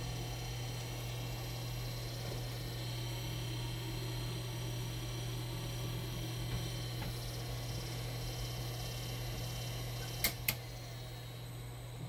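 Small AC motor driven by a Schneider ATV12 variable frequency drive, running with a steady hum and a high whine. About ten seconds in come two sharp clicks, and after them the sound turns quieter as the drive's output falls from 90 Hz to about 30 Hz.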